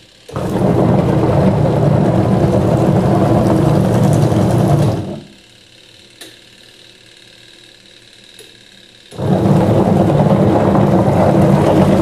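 Midea 10 kg twin-tub washing machine's wash motor churning a load of clothes with a steady whir. It runs for about five seconds, stops for about four, then starts again: the stop-start rhythm of the wash cycle.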